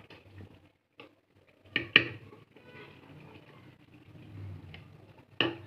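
A utensil knocking against a metal cooking pot a few times while chicken masala is spread over a layer of rice, the loudest pair of knocks about two seconds in and another near the end.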